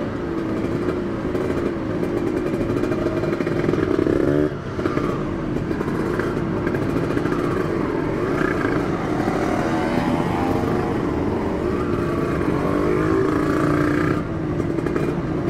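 Kawasaki Ninja motorcycle with an Aitech aftermarket exhaust being ridden under acceleration. The engine note climbs in pitch, drops sharply at a gear change about four seconds in, climbs again, and dips once more near the end.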